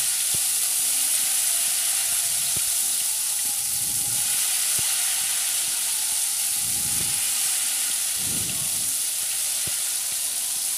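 Kremes batter of rice flour, tapioca and egg frying in hot oil in a pan: a steady, even sizzle, with a few faint ticks.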